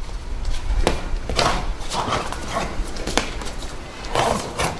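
A martial artist's feet stamping on stone paving and his jacket swishing and snapping in fast Chen-style taijiquan movements: a few sharp stamps and snaps between rushing swishes, over a low steady rumble.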